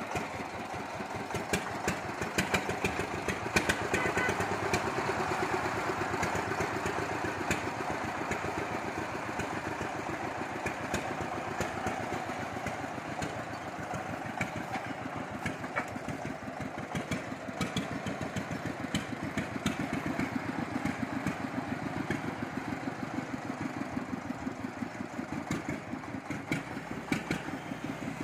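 Horizontal single-cylinder diesel engine of a home-built công nông farm truck running steadily as the bare chassis is driven, with a rapid, even chugging pulse throughout.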